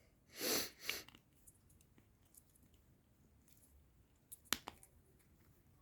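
Lego Technic plastic parts being handled as the front wheel is fitted to its axle: a short soft rush of noise near the start, then near quiet, and a sharp plastic click about four and a half seconds in, with a couple of smaller clicks around it.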